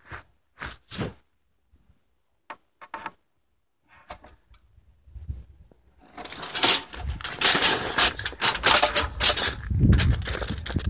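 A few short clicks, then near silence for several seconds, then from about six seconds in a dense run of irregular rustling, crackling and knocking handling noise close to the microphone.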